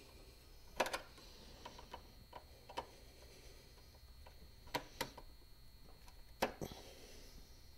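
Irregular small metal clicks and taps of a screwdriver working the screw terminals of a power inverter's terminal block as a wire is fitted and tightened, with the sharpest clicks about a second in, about five seconds in and near the end.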